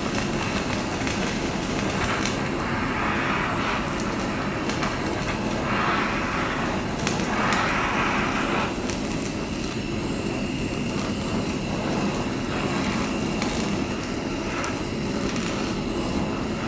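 Handheld gas-cartridge kitchen blowtorch burning with a steady hiss as its flame sears the skin of raw mackerel fillets.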